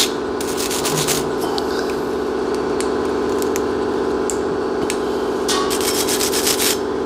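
A hand brush scrubbing brake parts clean in quick back-and-forth strokes, heaviest near the end, over a steady low hum.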